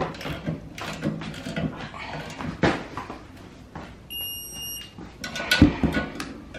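Metal clicks and knocks of a torque wrench and a spanner working on steel hitch-bracket bolts as they are tightened, with one heavy knock late on. A short high electronic beep sounds about four seconds in.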